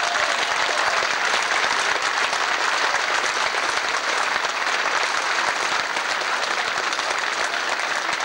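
A large crowd applauding, a dense, steady patter of many hands clapping.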